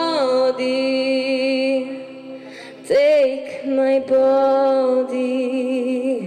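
A young female voice singing two long held notes to acoustic guitar accompaniment, the second note starting about three seconds in.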